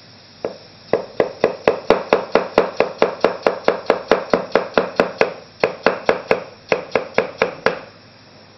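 Chinese cleaver slicing a peeled potato on a round wooden chopping block: rapid, even knocks of the blade on the board, about four to five a second. There is a short pause a little past halfway, and the chopping stops about a second before the end.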